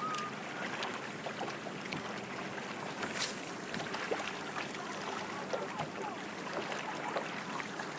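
Steady wind and water noise on a fishing boat, with scattered small clicks and taps and one sharper tick about three seconds in.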